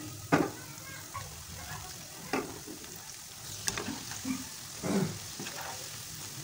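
Cabbage fritters sizzling as they deep-fry in hot vegetable oil in a frying pan, stirred with a skimmer, with a few short knocks and scrapes against the pan; the loudest knock comes about half a second in.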